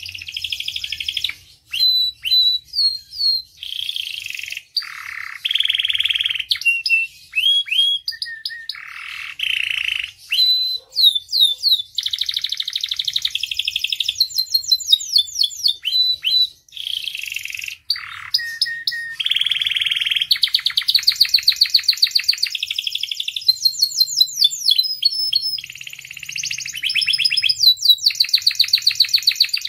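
Domestic canary singing a long, varied song: short whistled notes and quick upward-sweeping chirps alternate with fast trills (rolls) of rapidly repeated notes, several lasting a few seconds each. This is the vigorous full song kept as a model to prompt other canaries to sing.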